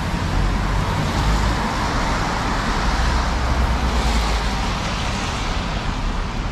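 Downtown street traffic: a steady rumble of cars on the road alongside, with one vehicle swelling louder as it passes in the middle and then fading.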